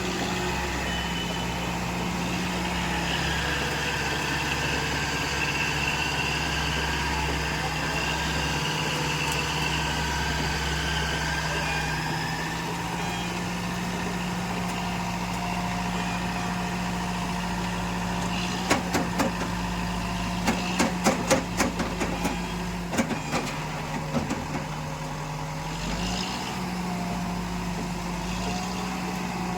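Heavy machine engine running steadily, its low rumble shifting a few times. A quick run of sharp clanks and knocks comes through in the middle.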